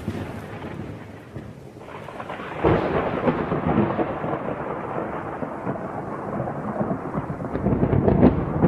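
Thunderstorm: thunder rumbling over steady rain, with a new roll of thunder breaking about three seconds in.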